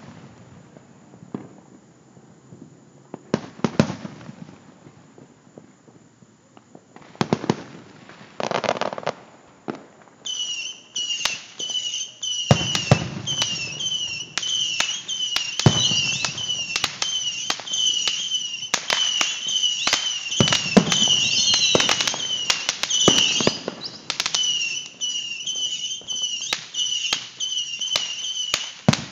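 Aerial firework shells booming one after another, several seconds apart, with crackling between them. From about a third of the way in, a high, wavering chirping sound runs on continuously under the bursts.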